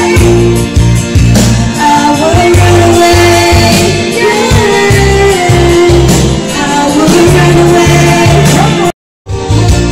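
Karaoke singing into a microphone over a loud backing track with a pulsing bass; the sound cuts out completely for about a third of a second near the end.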